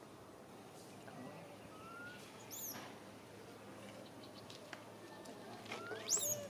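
Infant macaque squealing: two short, very high-pitched cries that rise and fall, the second louder and near the end. It is a distressed baby's cry wanting its mother.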